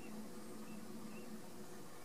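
Steady hiss of pouring rain, with a low steady hum underneath and a few faint, short, high chirps.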